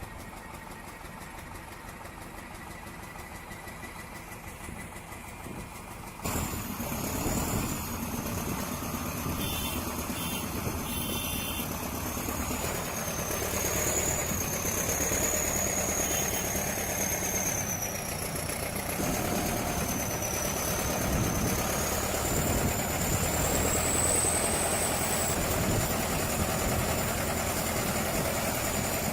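Heavy vehicle engines running steadily. About six seconds in the sound cuts to a louder engine, with a high wavering whine running above the rumble.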